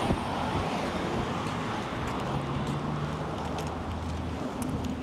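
Street traffic: steady road noise with a car engine's low hum, clearest in the middle.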